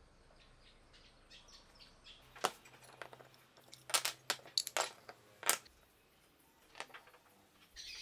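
Faint sparrow chirping for the first couple of seconds. Then pine and hardwood strips are set down and shifted on a wooden workbench, giving a string of sharp, irregular wooden clicks and knocks that are the loudest sounds here.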